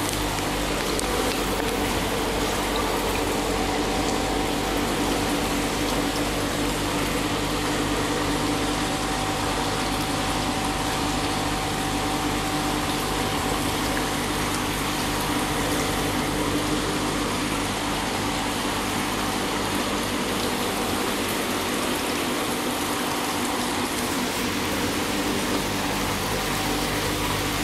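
Steady rush of moving water with a constant low hum: a fish tank's water pump or filter running.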